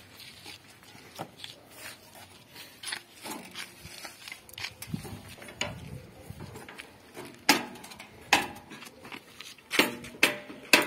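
Metal clicks and clanks from the handlebar and its fittings on a walk-behind tractor being worked by hand, with a few sharper knocks in the second half.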